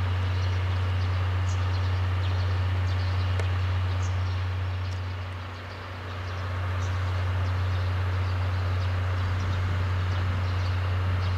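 DE10 diesel-hydraulic locomotive's engine idling as a steady low drone, dipping briefly near the middle.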